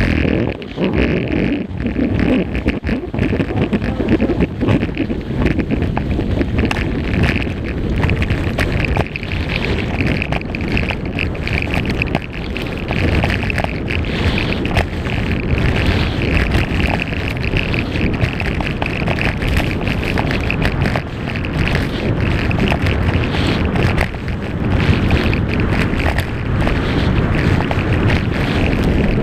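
Wind buffeting the camera microphone during a fast ski descent, with the skis hissing and chattering over packed snow in many short scrapes.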